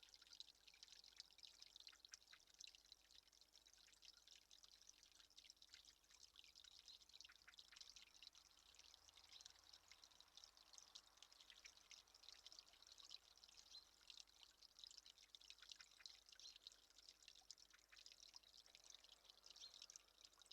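Faint, steady trickle of water with many tiny drips.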